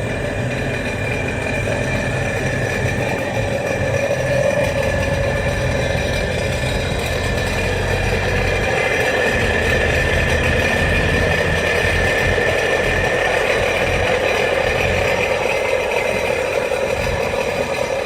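Sea-Doo GTI jet ski engine idling steadily out of the water, running so that it can be given a freshwater flush through a garden hose.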